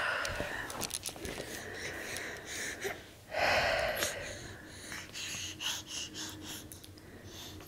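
A baby's breathy huffs close to the microphone: a louder one at the start and a stronger one about halfway, then softer short puffs.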